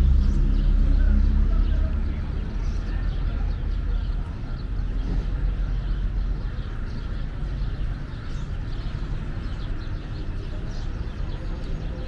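Street ambience: a steady low rumble of traffic, with a vehicle engine loudest in the first two seconds before fading into the background.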